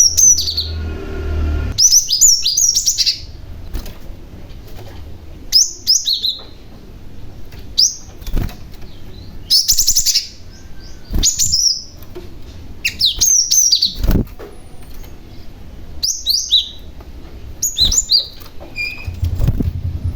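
Young cinereous tit (glatik batu) calling loudly in short bursts of quick, high, falling notes, a burst about every two seconds, with a few soft thumps in between.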